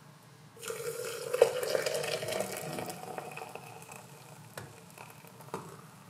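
Water poured from a kettle onto coffee grounds in a glass jug, starting about half a second in. The splashing pitch rises as the jug fills, then the pour tails off, followed by a couple of light clicks near the end.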